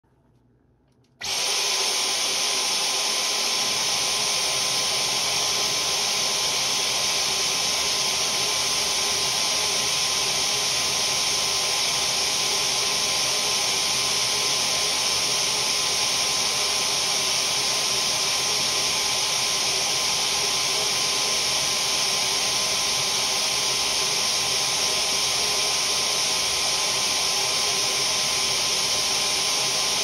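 Dyson cordless stick vacuum switching on about a second in, reaching full speed at once, then running steadily with a high thin whine over its rushing airflow.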